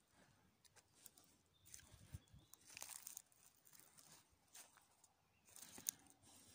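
Faint rustling and crunching of dry leaf litter close to the microphone in irregular bursts, from someone moving about on the forest floor, with a sharp click near the end.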